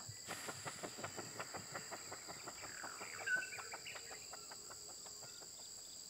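Faint, even cricket-like chirping, about seven pulses a second, with a brief higher chirp about three seconds in.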